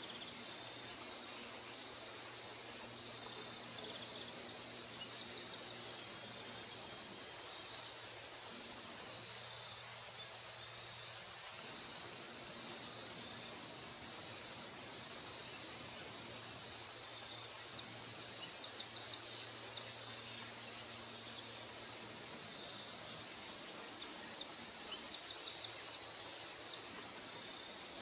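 Insects chirping in a steady, high-pitched pulsing chorus over a soft background hiss, with a few short runs of quicker clicks partway through and near the end.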